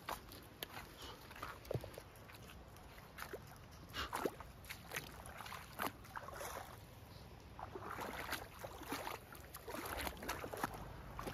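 Irregular steps crunching and clacking on loose river gravel, mixed with water sloshing and splashing as a corgi and its walker wade into a shallow stony creek.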